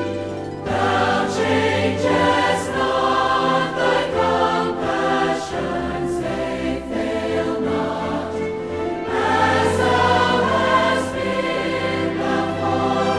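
Music: a choir singing.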